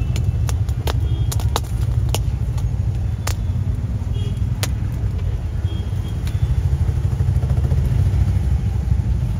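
Steady low rumble of a moving road vehicle, with a few sharp clicks or knocks in the first five seconds.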